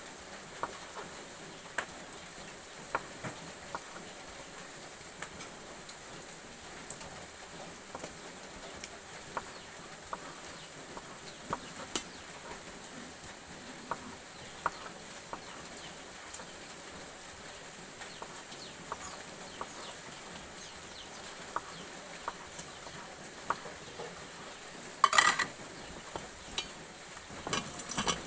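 Light, scattered clicks and taps of a utensil working food on a plate, over a steady low hiss. A brief, much louder burst of noise comes about 25 seconds in.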